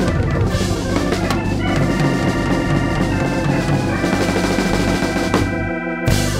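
Live blues band playing: an organ-toned keyboard holds chords over a drum kit and bass. A little after five seconds in the drums and bass drop out, leaving the organ chord alone, and then the whole band comes back in on a loud hit.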